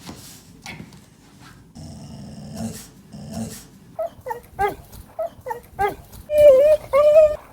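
Yellow Labrador retriever vocalising: quiet grumbling noises, then a run of short whining, yodel-like calls that bend up and down in pitch. The last two calls, near the end, are longer and louder.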